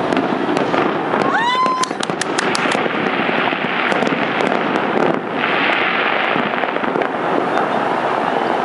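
Fireworks going off in a dense, continuous crackle of pops and bangs. About a second in, a short rising whistle is followed by a quick run of sharp cracks.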